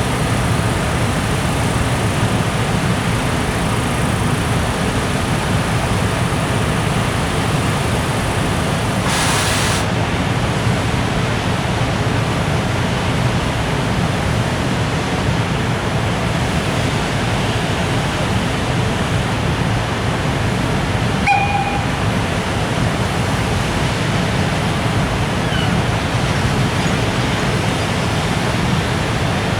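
JR Freight container train rolling past, a steady low rushing noise of Koki container wagons on the rails. A brief hiss about a third of the way in and a short beep about two-thirds through.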